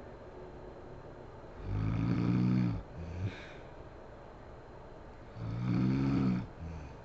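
A sleeping woman snoring: two snores about four seconds apart, each about a second long with a low, buzzing pitch, and each followed by a short, fainter breath.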